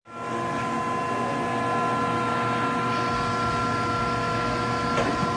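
Seavey back-knife lathe running: a steady machine hum with a constant whine held throughout, and a light tick about five seconds in.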